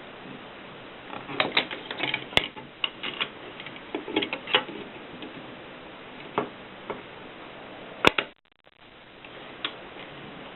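Kolibri manual typewriter typing: keys striking in irregular quick runs with scattered single clicks and a couple of sharper, louder strikes. The sound drops out briefly about eight seconds in.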